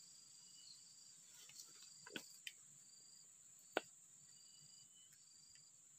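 Faint insect chorus of crickets: a steady high-pitched drone with a shorter chirp repeating about once a second. A few sharp clicks sound near the middle.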